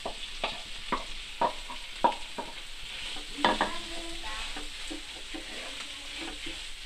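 Boiled potatoes being stirred and mashed with a spatula in a hot pan of oil and spices, with a frying sizzle throughout. The spatula knocks and scrapes against the pan, most often in the first few seconds.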